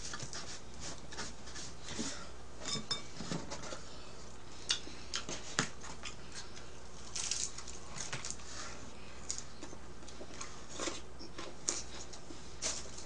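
Eating sounds of thin-crust pizza: slices pulled apart and chewed, with scattered small clicks and crackles from handling the food and box.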